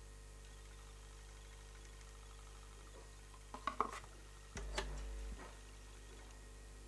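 Faint steady mains hum from a record-playing setup, with a quick cluster of clicks about three and a half seconds in as the turntable is started, then a brief low rumble lasting under a second.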